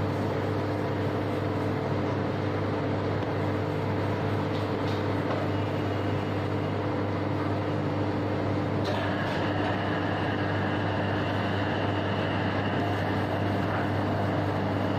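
Steady low mechanical hum of running machinery, with a higher-pitched whine joining in about nine seconds in.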